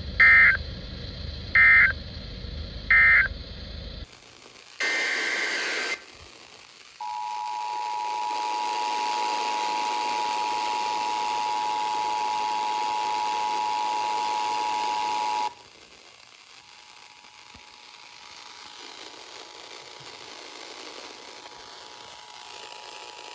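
Emergency Alert System tones over a radio feed. First come three short screeching data bursts (the end-of-message code). About two seconds later comes one longer data burst. Then the two-tone attention signal is held steady for about eight seconds and cuts off suddenly, leaving hiss with a faint tone.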